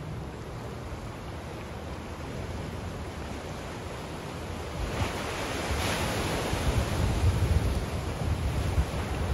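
Water washing against the rocky shore of the strait, with wind gusting on the microphone. The sound grows louder about halfway through as a wave washes in and the low wind rumble picks up.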